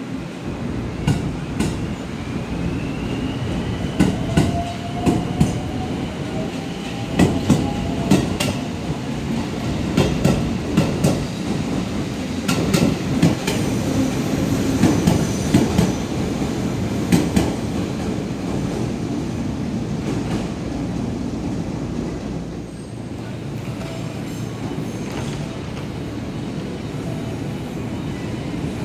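Electric commuter train pulling out of a platform: a rising motor whine as it gathers speed and a long run of sharp wheel clacks over rail joints and points. The clacks die away after about 18 seconds, leaving a steadier rumble.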